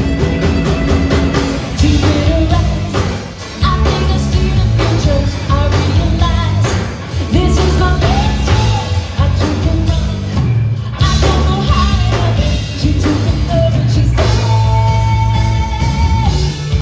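Live band playing a rock song, a singer over guitar, bass and drums with a steady beat.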